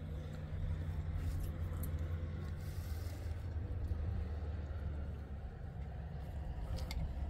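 Steady low hum of a running engine, thinning slightly about three seconds in.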